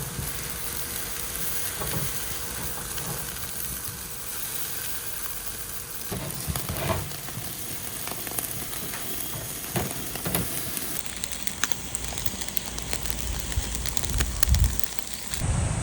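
Chicken dakgalbi sizzling steadily on a charcoal grill, with scattered crackles. A few low thumps come near the end.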